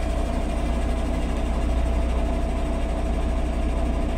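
Asphalt distributor truck's engine idling steadily: a low drone with a steady, higher-pitched tone running over it.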